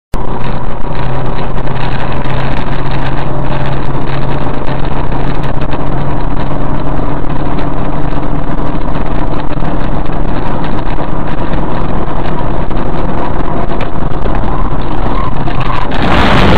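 Car engine and road noise at highway speed picked up inside the cabin by a dashcam, a steady hum under a rush of tyre and wind noise. About sixteen seconds in it turns suddenly into a louder rushing noise as the car runs off onto the dirt shoulder.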